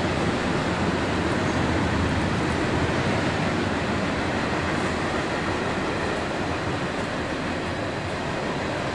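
Steady, even rumbling noise of idling vehicles, echoing in an enclosed garage.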